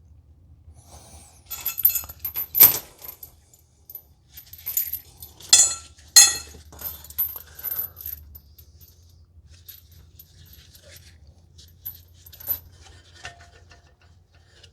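Metal tools and steel parts clinking and rattling in clusters, with sharp ringing strikes about two and a half and six seconds in, then a few scattered lighter clicks.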